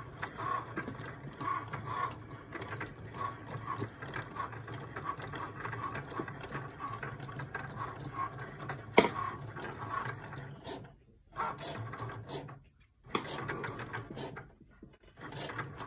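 Cricut Maker cutting machine at work, its carriage motors whirring in short repeated strokes as the blade cuts a small, detailed design into iron-on vinyl. There is a sharp click about nine seconds in, and brief pauses in the motor noise in the last few seconds.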